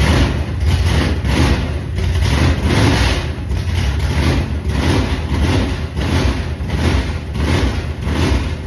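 Ford FE big-block V8 idling loudly, its sound surging in a steady rhythm about twice a second.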